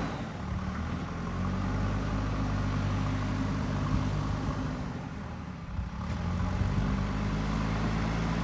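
Diesel engine of a JCB 3DX backhoe loader running steadily while working. It eases off and drops in level about five seconds in, then picks up again.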